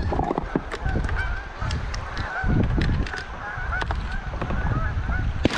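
A flock of Canada geese honking, many short calls overlapping one another, over a low rumble.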